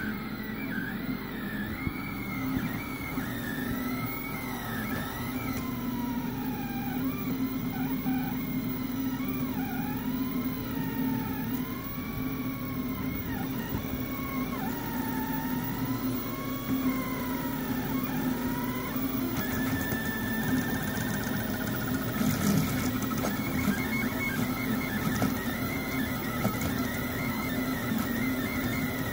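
FLSUN delta 3D printer printing: its stepper motors whine in pitches that rise and fall as the print head moves, over a steady hum. About two-thirds of the way through, the whine settles into steadier tones.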